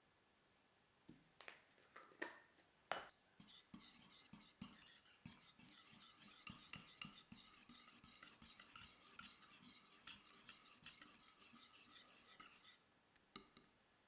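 A stainless-steel wire whisk beats a thick creamy mixture in a white bowl, the wires scraping and clicking against the bowl in quick, steady strokes for about nine seconds before stopping. A few sharp clinks come before the whisking starts, and two or three come just after it stops.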